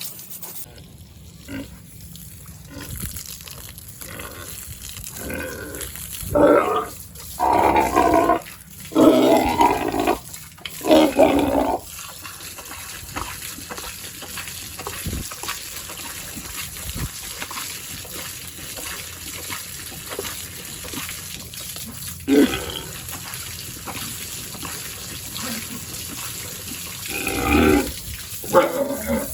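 Pigs giving a series of loud calls for about six seconds, starting some six seconds in, then a single call later on and another pair near the end.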